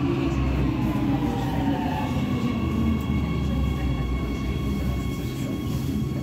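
Metro train slowing into a station, heard from inside the car: its motor whine falls in pitch as it slows, over a steady rumble from the running gear. About two seconds in, a set of higher steady tones takes over.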